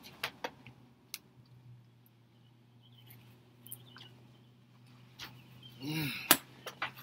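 Over a steady low hum, a few scattered faint clicks, then about six seconds in a short grunt-like exhale and a sharp knock as a hand comes down on a small folding stool.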